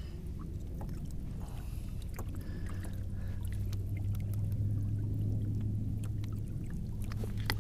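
Low steady rumble of water and motion around a fishing kayak, swelling a little midway, with faint small clicks and rustles of hands handling gear.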